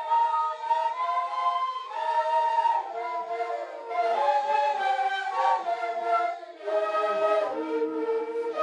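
A group of quenas, the long notched end-blown cane flutes of the Andean quena-quena dance, playing a melody together in held, overlapping notes, with a brief break between phrases about six and a half seconds in.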